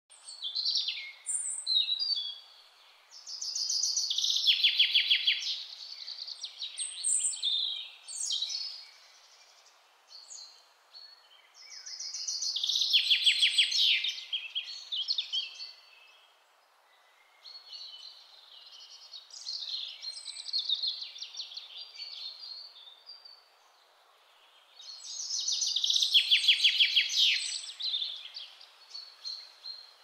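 Songbirds singing: loud, varied song phrases that break into fast trills come roughly every ten seconds, with shorter high chirps in between, over a faint steady background hiss.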